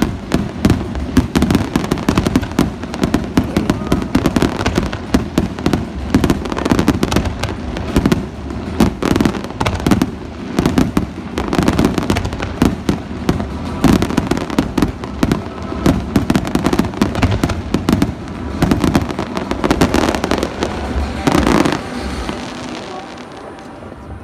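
Fireworks shells bursting in rapid, overlapping succession, a dense barrage of bangs and crackles that thins out and fades near the end.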